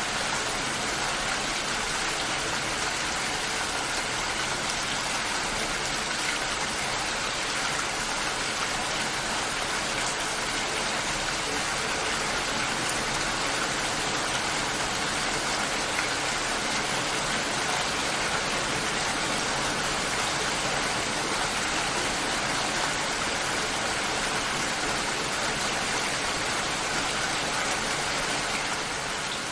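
Steady rainfall: an even, unbroken hiss of rain, easing a little near the end.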